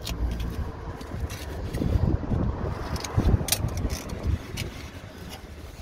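Wind buffeting the microphone as a steady low rumble, with a few light clicks and rustles from handling close by.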